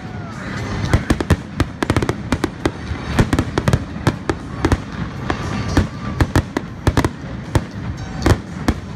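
Aerial fireworks shells bursting in a dense barrage, several sharp bangs every second.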